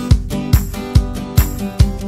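Background music with guitar over a steady beat, about two beats a second.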